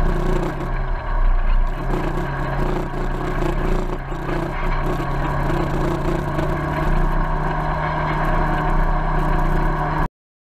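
Polaris RZR side-by-side's twin-cylinder engine running at a steady pace, heard from inside the cab, with the rumble and rattle of the ride over the trail. The sound cuts off suddenly near the end.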